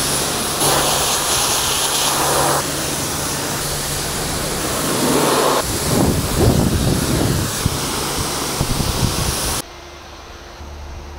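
Pressure washer jet spraying water onto a car, a steady loud hiss over a steady low hum. About six seconds in the jet is turned onto the front wheel and the wet ground, and the sound becomes a rougher splashing. Near the end it cuts off sharply, leaving a quieter low hum.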